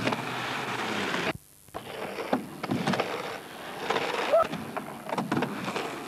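Skateboard wheels rolling on concrete and the ramp, with scattered clacks and knocks of the board. The sound cuts out completely for a moment about a second in, and a short rising squeal is heard about halfway through.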